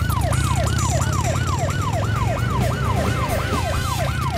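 A police-style siren sounding in a fast repeating cycle, its pitch falling on each sweep about three times a second, over a low steady rumble.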